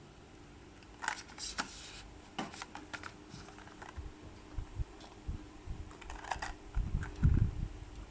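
Small packaging being handled during an unboxing: sharp clicks, taps and brief rustles, with a few low thumps about seven seconds in.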